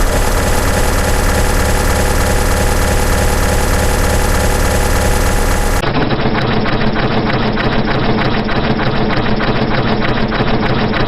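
Sustained automatic gunfire sound effects. First comes a very fast, steady stream of fire that blurs into a buzz. About six seconds in it cuts to a different recording of continuous rapid fire, with separate shots packed closely together.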